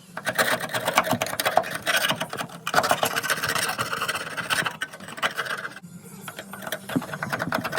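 Pneumatic needle scaler hammering rust and scale off a steel plate, a rapid, steady rattle that stops briefly about six seconds in and then starts again.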